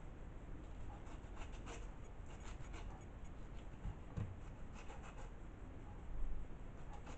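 A small kitchen knife paring the peel off a fruit held in the hand: faint, irregular scraping and cutting strokes, with a few dull knocks about four and six seconds in.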